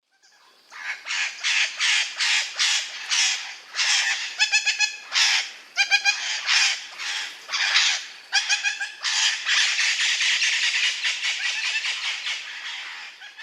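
Green ringneck parakeet squawking harshly over and over, with a few short pitched calls mixed in and a long stretch of continuous screeching near the end. These are the aggressive calls of a parrot in a fighting mood, guarding its bed.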